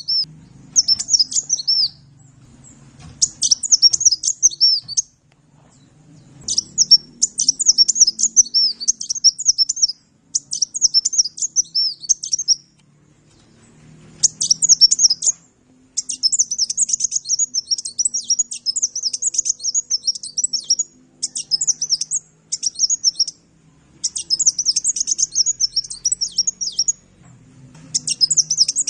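Sunbird (Indonesian 'kolibri') singing a rapid, high-pitched twittering song in phrases of one to a few seconds, with short pauses between them.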